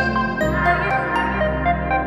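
Instrumental background music: short repeated notes over a held bass line, the bass changing about half a second in.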